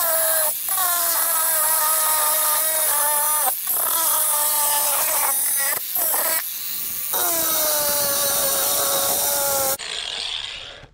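Ryobi angle grinder with a cutting disc running at a high whine as it cuts into the boat's metal hydrofoil plate. The whine breaks and dips in pitch several times as the disc bites in or is lifted off. It cuts off near the end.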